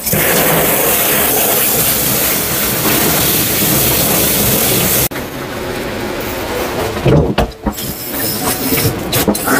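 Water spraying hard from a hand-held hose spray nozzle onto a small dog and a plastic tub grate, a steady hiss that starts abruptly. About five seconds in it drops suddenly to a quieter, duller spray, with some louder bursts near the end.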